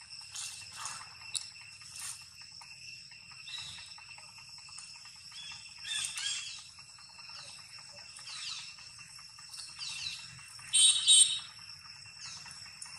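A steady, high-pitched insect drone with scattered high chirping calls. About two-thirds of the way through comes a brief, loud, shrill call made of several tones.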